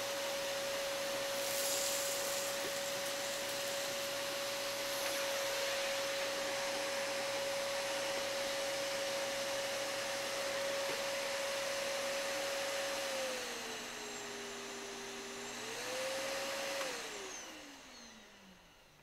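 Titan T1400 compact canister vacuum running, a steady motor whine over the rush of air. Near the end the whine drops lower for a couple of seconds and comes back up, then the motor shuts off and winds down with a falling pitch.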